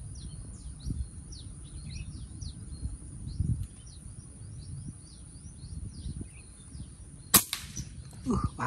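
A single shot from a PCP air rifle about seven seconds in: one short, sharp crack. Small high chirps repeat in the background.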